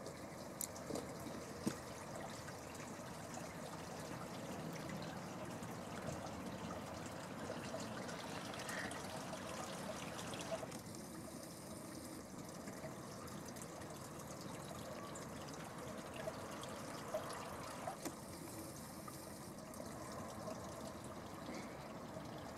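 Water trickling and flowing steadily over the travertine terrace pools, with a few brief knocks.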